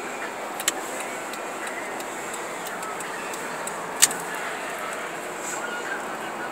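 Steady road and tyre noise heard inside the cabin of a Honda Passport driving on a slushy, snow-covered road. Two sharp clicks cut through it, a small one under a second in and a louder one about four seconds in.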